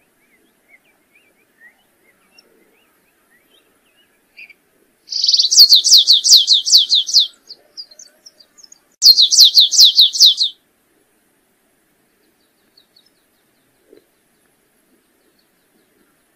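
Canário-rasteiro (stripe-tailed yellow finch) singing: two quick trilled phrases of high, downward-sliding notes, several a second, about four seconds apart, with a few faint chips before and between.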